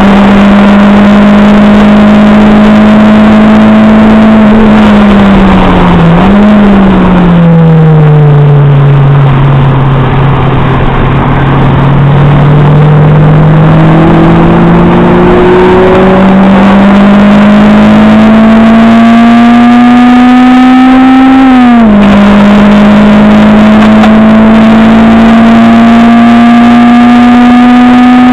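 Acura RSX Type-S's K20A2 2.0-litre four-cylinder engine at full throttle on track, heard from inside the cabin. The revs dip as the car brakes for a corner about five seconds in and stay low through it. From about 14 seconds they climb steadily, drop sharply at an upshift about 22 seconds in, and climb again.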